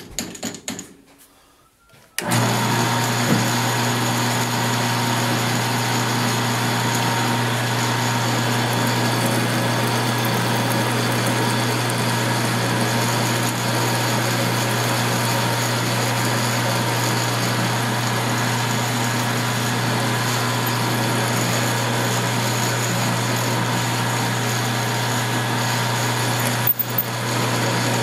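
A drilling machine starts about two seconds in after a few light clicks, then its motor and spindle run at steady speed as a twist drill cuts a hole through 1-inch 6061 aluminum plate. The running is an even hum with a steady whine on top, with a brief knock near the end.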